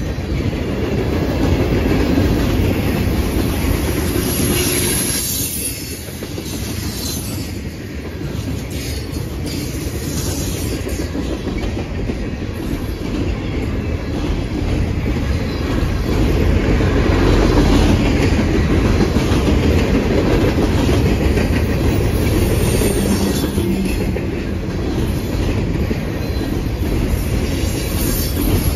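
A freight train's steel wheels rolling past over the rail joints in a steady rumble and clatter, with a few brief high wheel squeals.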